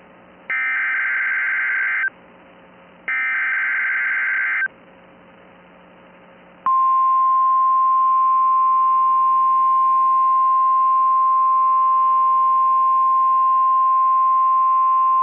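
Emergency Alert System SAME header data bursts on NOAA Weather Radio: two identical raspy buzzes, each about a second and a half long and a second apart. After a short gap comes the steady single-pitch NOAA Weather Radio warning alarm tone, held for about nine seconds. This is the signal that an emergency warning broadcast is about to follow.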